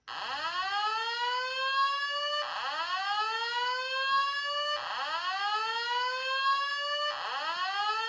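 Simplex 4903-series speaker strobe sounding a fire alarm whoop tone: a pitch sweep that rises and restarts about every two and a half seconds, four times over. It starts abruptly and is the alert tone of a voice evacuation signal set off by the pulled station.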